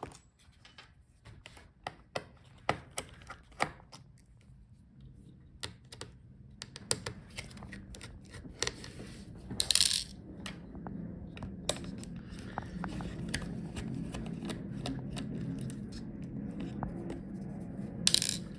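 Small metallic clicks and taps of a screwdriver and screws on a laptop's chassis during disassembly, with two brief rasping bursts about ten seconds in and near the end. A low hum runs underneath from about seven seconds in.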